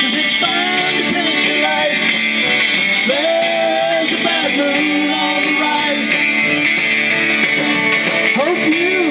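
A live band playing with strummed guitars and a voice singing over them, at a steady level throughout.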